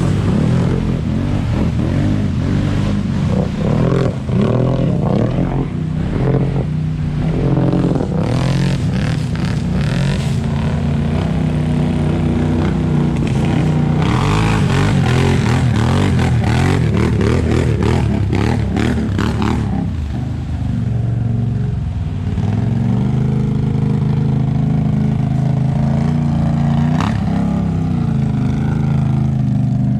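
ATV engine running under way, its pitch rising and falling with the throttle. Spells of rushing, crackling noise come in over it about eight seconds in and again from about fourteen to twenty seconds.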